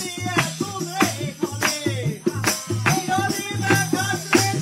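Live Himachali jhuri folk music: a tambourine's jingles struck and shaken in a quick, steady rhythm over a repeating low beat, with a voice singing.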